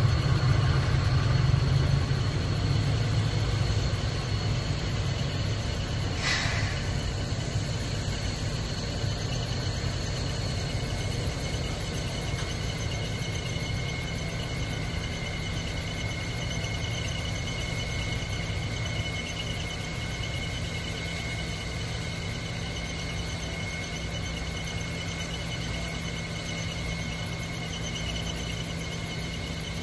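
EMD SW1500 switcher's 12-cylinder diesel engine running with a low rumble that fades as it pulls a cut of tank cars away. Steady high-pitched squealing of steel wheels on the rails carries on throughout, and a brief hiss-like burst comes about six seconds in.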